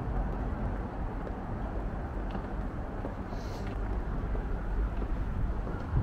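Steady low rumble of urban background noise, with a brief faint hiss about three and a half seconds in.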